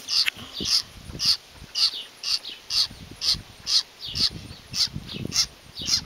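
Baby bird begging for food: short, high calls repeated about twice a second while it is being hand-fed.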